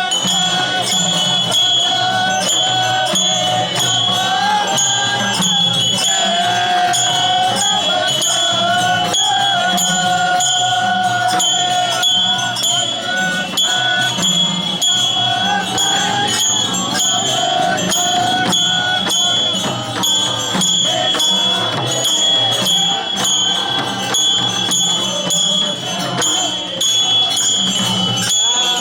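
Festival procession music: drums and cymbals struck in quick, continuous strokes, with a steady metallic ringing and a wavering melody line carried above them.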